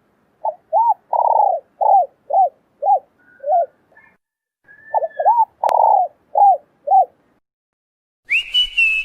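Spotted doves cooing: two phrases, each a run of short arched coos with one longer drawn-out note among them. A sharp click falls in the second phrase, and a different steady high tone comes in near the end.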